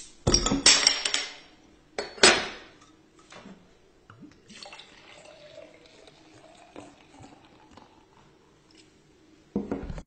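Beer bottle being opened with a bottle opener: metal clinks and a pop with a fizzing crackle, then another sharp clink about two seconds in. The beer is then poured into a stemmed glass as a quiet, continuous trickle, with a short clatter near the end.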